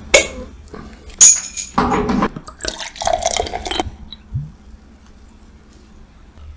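A bottle opener levers the cap off a glass bottle of lager with a sharp pop just after the start. About a second in the lager starts pouring into a glass beer mug, splashing and foaming in bursts for under three seconds before stopping.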